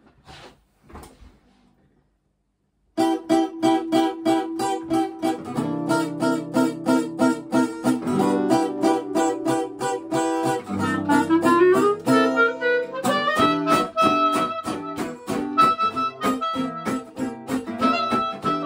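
A few soft handling knocks, then about three seconds in two acoustic guitars start strumming a steady jazz rhythm. A clarinet plays over them, sweeping up in a long rising run a little past the halfway point and then holding higher notes.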